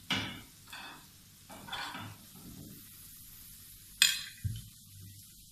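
Pieces of meat sizzling in a frying pan as they are lifted out with a fork, with a few short scrapes of the fork in the pan. A single sharp clink of metal on the pan or plate about four seconds in.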